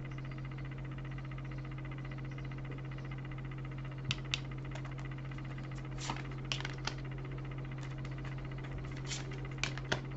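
Light, sharp clicks and snaps of tarot cards being handled and laid down, scattered from about four seconds in, over a steady low hum.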